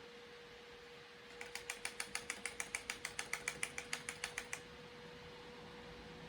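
A computer keyboard key, F12, tapped rapidly about twenty times in a quick, even run of clicks lasting about three seconds, to call up the PC's boot menu at startup.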